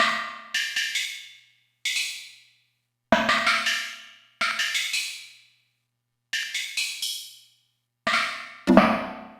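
Roland D-05 synthesizer playing a percussive patch: about seven separate struck notes and chords, each starting sharply and dying away within about a second, with short silences between them. Some strikes are bright and high, others fuller.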